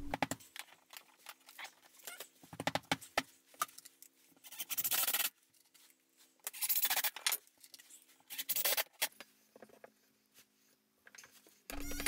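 Small clicks and rattles of a steel bracket and screws being handled, then a cordless drill driving screws into a plywood wall in three short bursts about two seconds apart.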